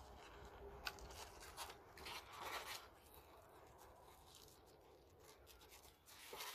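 Faint rustling and rubbing of a paper folder cover and sheer ribbon being handled as the ribbon is threaded through punched holes, with a few soft brushes and clicks in the first three seconds, then quieter.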